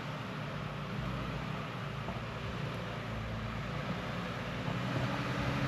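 Off-road 4x4's engine running with a steady low rumble, getting a little louder near the end.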